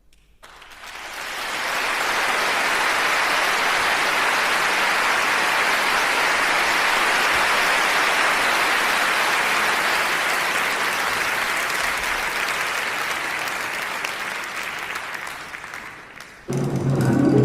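Concert audience applauding, swelling over the first couple of seconds, holding steady, then dying away just before the ensemble starts the next piece near the end.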